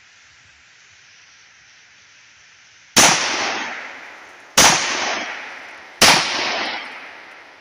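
Three 9mm pistol shots from a Stoeger STR-9C compact, about a second and a half apart, each a sharp crack followed by an echo that fades over about a second.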